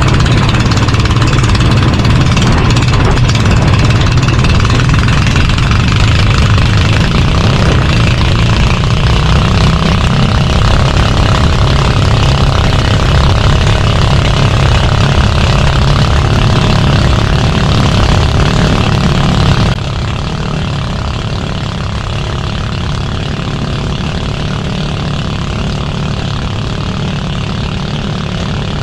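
Fishing boat's engine running steadily under way, a loud continuous drone with rushing wind and water noise. The sound drops in level abruptly about two-thirds of the way in.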